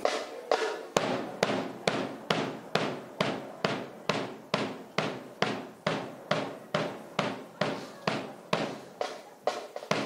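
A drill company of cadets marching in unison, their stamped steps landing together as a steady beat of sharp thuds about twice a second, each with a short echoing tail.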